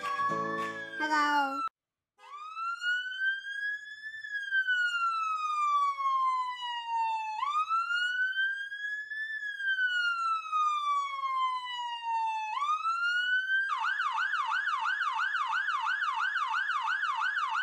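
Intro music ends less than two seconds in. After a short gap, a toy fire engine's electronic siren wails in slow rising and falling sweeps about five seconds apart. Near the end it switches to a fast yelp.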